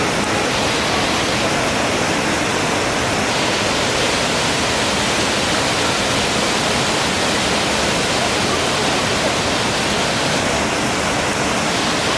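Waterfall's water rushing, a loud, steady, unbroken sound.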